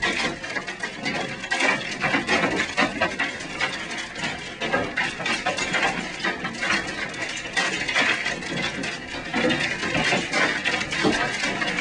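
Large hailstones, golf-ball to baseball size, pelting a building in a dense, unbroken clatter of hard impacts.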